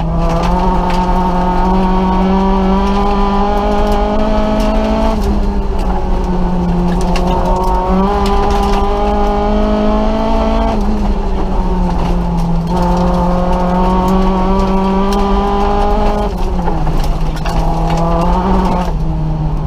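Nissan Micra rally car at full throttle, heard from inside the cabin: the engine revs climb through each gear and drop back at gear changes about five, eleven and sixteen seconds in. Gravel clicks against the car throughout.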